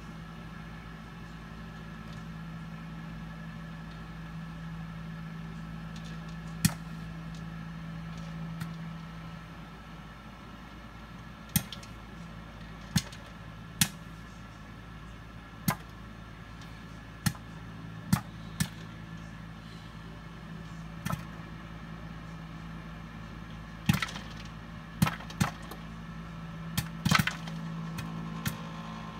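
Popcorn kernels popping one at a time in a Todd English Robo Cooker: about fifteen sharp, separate pops that come closer together near the end, over the cooker's steady hum.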